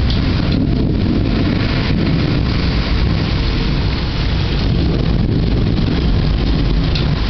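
Thunderstorm: a steady, loud low rumble of rolling thunder under the hiss of heavy rain.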